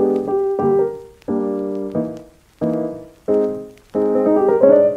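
Intro music of piano chords struck one after another, about one a second, each fading before the next.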